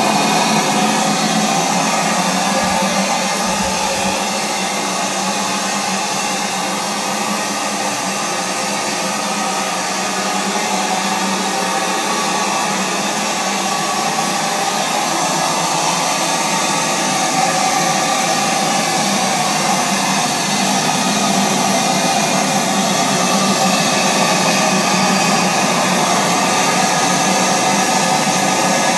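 Model paddle-wheel steamer's D-10 steam engine running under steam, a steady hissing whir.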